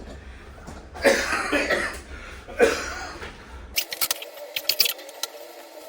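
A person coughing hard twice, the first cough longer. The background then cuts off abruptly and several sharp clicks follow.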